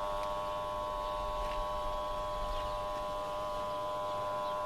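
Steady hum made of several even, unchanging tones over a low rumble, heard inside a car driving on a snowy road as its dashcam records.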